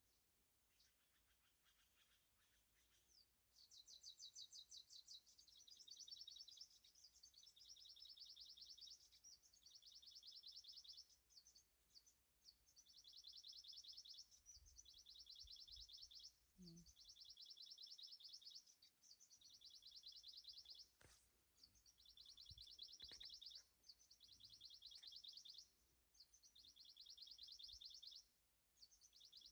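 Faint, high-pitched rapid trilling calls that start a few seconds in and then repeat in bouts of one to two seconds with short pauses between them.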